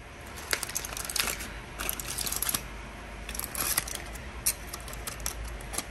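Aluminium foil crinkling in irregular clusters of sharp crackles as a foil packet is opened on a plate, over a low steady hum.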